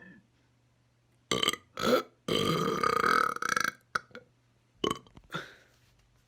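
A man burping: two short burps about a second in, then one long drawn-out burp of about a second and a half with a wavering pitch, followed by a few brief quieter sounds.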